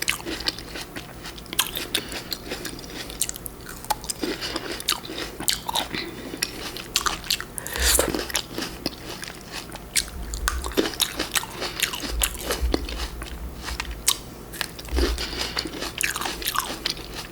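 Close-miked eating of fresh fruit: repeated biting and chewing, with many short crisp clicks and crunches and a few soft low thumps.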